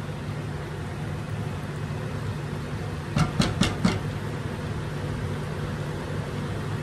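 A spatula knocked four times in quick succession against a stainless steel saucepan of cheese sauce, about halfway through, over a steady low hum.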